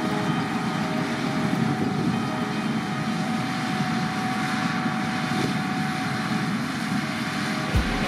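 Gleaner S9 Super Series combine harvester running steadily while harvesting standing corn, a continuous mechanical drone with a few steady tones. Near the end, the thump of a drum beat comes in.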